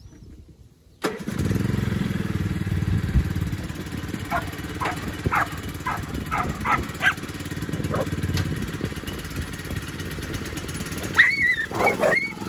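Riding lawnmower engine starting about a second in and then running steadily, being tested after its slipped drive belt was put back on. Dogs bark over it, a quick string of barks in the middle and more near the end.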